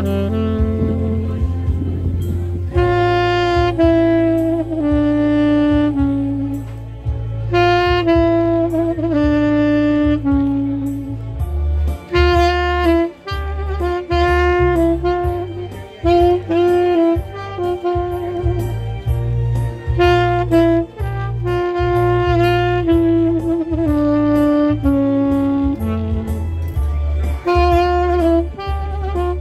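Saxophone playing a melody of mostly held notes with short breaks between phrases, over a low accompaniment underneath.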